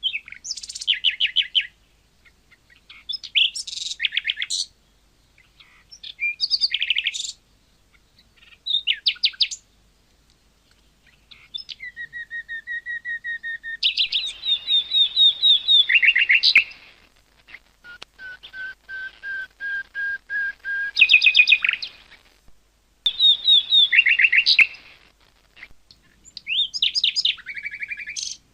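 Nightingale singing: a run of short phrases separated by brief pauses, each made of fast repeated notes and trills. Some phrases are long runs of one note repeated several times a second.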